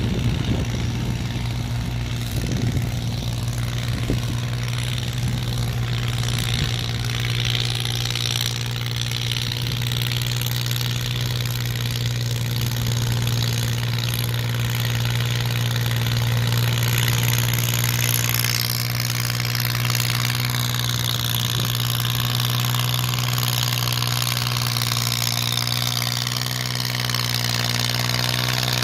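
Engine of a homemade tracked soil carrier running steadily as it drives up loaded: an unbroken low hum that grows a little louder about halfway through.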